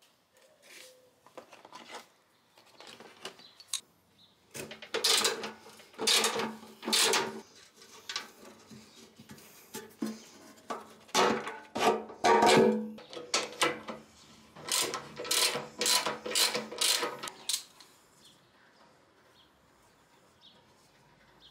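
Metal hand tools clinking and rattling: a run of sharp, irregular clanks as sockets and a screwdriver are handled, thickest in the middle and dying away near the end.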